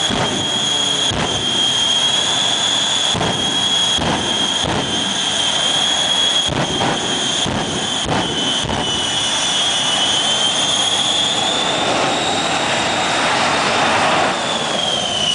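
Jet engines of the Shockwave jet truck running with a steady high whine, broken by a string of sharp bangs over the first nine seconds or so. Then the noise swells louder and the whine drops in pitch near the end as the truck speeds away.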